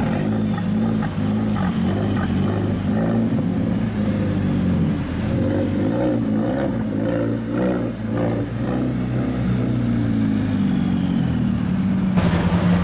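KTM X-Bow's turbocharged four-cylinder engine, Pankl-tuned, running with the throttle blipped again and again so the revs rise and fall, louder near the end.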